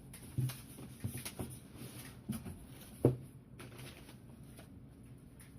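A cardboard shipping box being handled and opened: a few short knocks and rustles of cardboard and packing, the loudest about three seconds in, then quieter handling.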